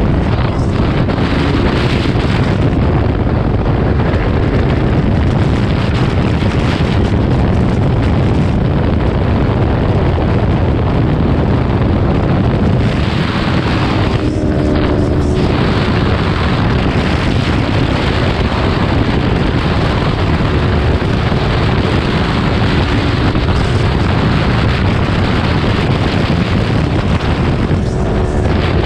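Heavy wind buffeting on the microphone of a Kawasaki Ninja 400 riding at highway speed: a loud, steady rumbling rush that covers most of the bike's engine sound. It eases briefly about halfway through, letting a faint engine hum through.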